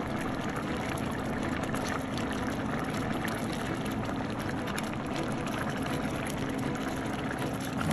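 A pot of butternut squash chickpea curry simmering, a steady bubbling sound with many small pops.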